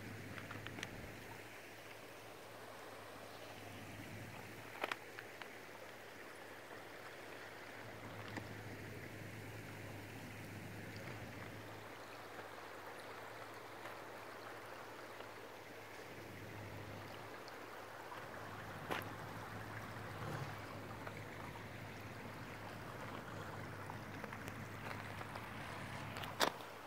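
Steady rushing of shallow water flowing over stones, with a steady low hum underneath and a few sharp clicks scattered through it.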